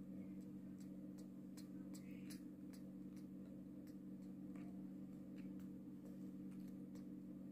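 Quiet room tone: a steady low hum with faint, irregular light ticks scattered through it.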